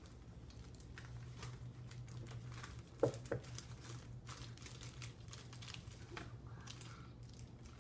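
Dry cake mix being poured from its bag into a plastic blender jar: faint crinkling of the bag and soft ticks and patters of the powder, with a sharper tap about three seconds in, over a steady low hum.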